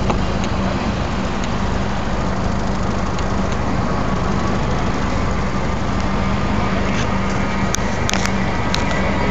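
An engine running steadily: a constant low hum over heavy rumble that does not change in pitch or level, with a few faint clicks near the end.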